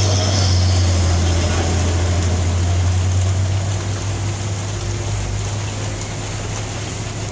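Heavy dump truck's diesel engine pulling up a steep hairpin with a deep steady drone, over the hiss of the wet road. The drone eases a little about halfway through as the truck climbs away.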